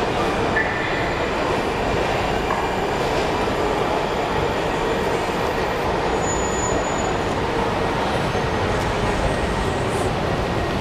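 Washington Metro train pulling into an underground station and slowing to a stop: a steady rumble of the railcars' wheels and running gear, with a brief high squeal about six seconds in.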